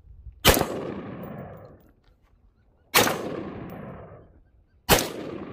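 Three single shots from an AR-15 rifle, about two seconds apart, each followed by a long fading echo.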